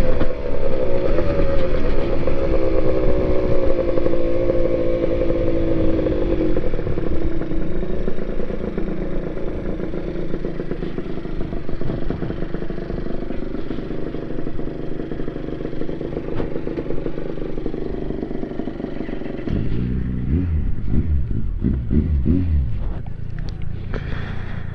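Honda NSR80's two-stroke single-cylinder engine heard on board, its note falling steadily as the bike slows, then running low and even at walking pace. About twenty seconds in, the engine note rises and falls a few times in quick succession.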